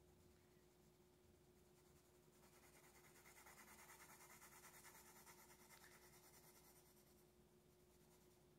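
Faint scratching of a yellow colored pencil shading on paper in quick back-and-forth strokes, strongest in the middle of the stretch.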